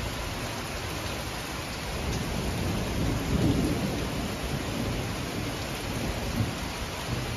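Heavy rain falling steadily, with a low rumble of thunder swelling about three seconds in.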